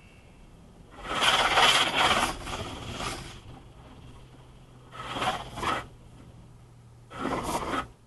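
High-pressure car wash water jets hitting the car's windshield and body in three hissing bursts, the first and longest about a second in, heard from inside the car. A steady low hum runs beneath from about a second in.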